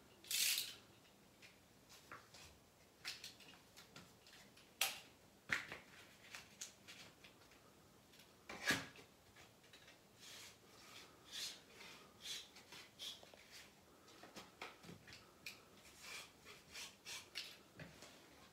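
Wallpaper being trimmed at the bottom edge with a blade and scissors: faint paper rustling and scattered small clicks, with a short rustle about half a second in and sharper clicks near five and nine seconds.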